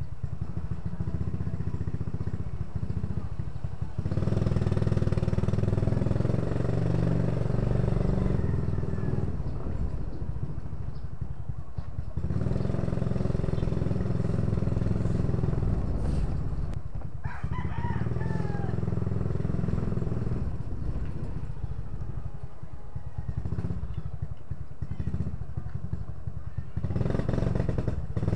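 Motorcycle engine running while riding slowly. It gets louder and eases off several times as the bike speeds up and slows. A rooster crows once about 17 seconds in.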